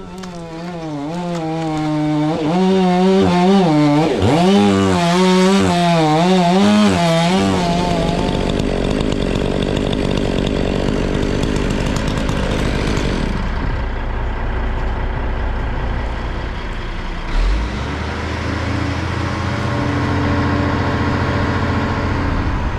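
Chainsaw running at high revs, its pitch wavering up and down under load as it cuts, for about the first eight seconds. After that a deeper, steady engine rumble with noise over it carries on.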